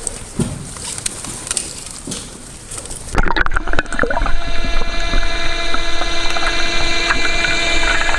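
Water splashing and dripping around a diver wading in, then an abrupt change about three seconds in to underwater sound: diver propulsion scooter motors running with a steady whine of several held tones over a low rush.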